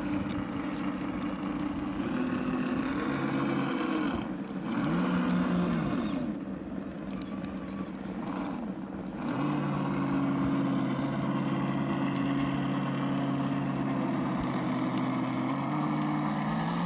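Electric motor and gearbox whine of a 1/10-scale FTX Mauler RC crawler. The pitch rises and falls in short spurts as the throttle is applied and released, then holds steady for several seconds before dropping off near the end.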